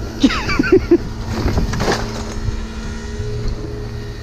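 A vehicle engine idling with a steady low hum, a brief voice sound in the first second, and a few knocks of scrap being handled about a second and a half to two seconds in.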